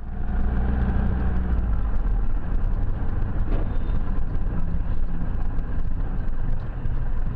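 Car engine and road noise heard from inside the cabin by a dashcam: a steady low drone while driving.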